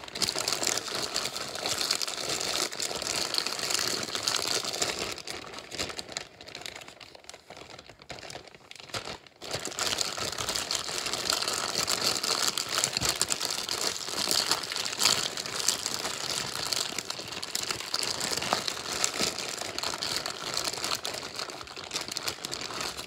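Plastic zip-top bag crinkling as it is shaken and kneaded with raw chicken leg quarters and seasonings inside, coating the chicken. The crinkling eases off about five seconds in and picks up again at about nine seconds.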